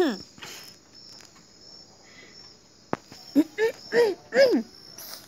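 Crickets chirping steadily in a high, even pulse. A single sharp click comes about three seconds in, followed by a few short rising-and-falling calls from a person's voice.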